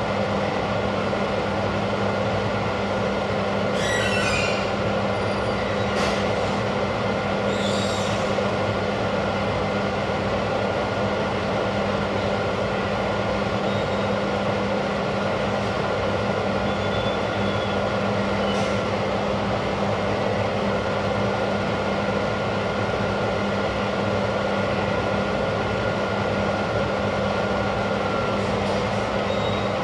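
Steady machine hum and hiss, with two brief high chirps about four and eight seconds in.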